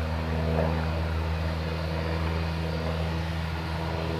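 Distant Airbus A320 jet engines running steadily: a low, even hum with a hiss over it.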